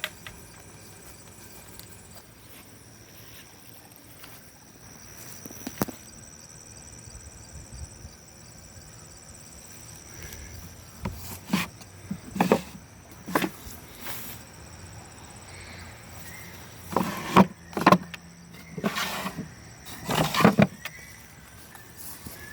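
Handling of a metal machinist tool chest: a series of short knocks and clunks about halfway through, heaviest near the end, over a faint steady high-pitched chirring of insects.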